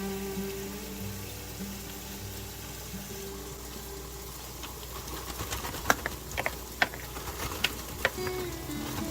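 Soft background music with held notes. From about five seconds in, a series of sharp clicks and taps joins it.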